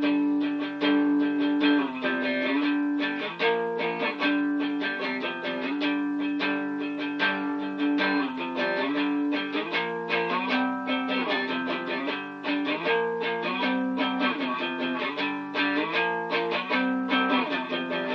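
Guitar playing an instrumental passage of quick, steady chord strokes with no singing.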